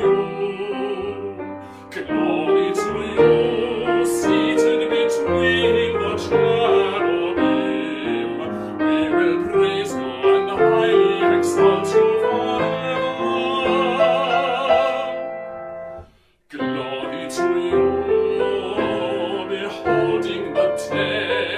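A man's solo voice singing in a classical, operatic style with vibrato, accompanied by a grand piano. Both stop briefly about three quarters of the way through, then carry on.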